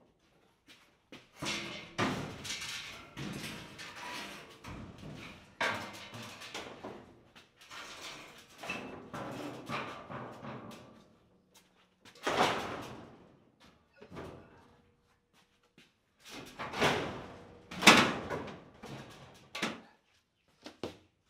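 Scraping and knocking as a plywood sheet is handled against a steel shelf rack, with several sharp bangs in the second half, the loudest about three-quarters of the way through.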